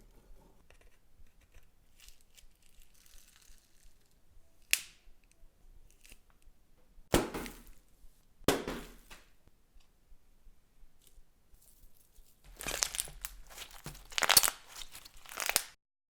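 Slime being handled, with sharp crackling snaps about 5, 7 and 8.5 seconds in, then a run of crackling and popping from about 12 seconds that cuts off suddenly.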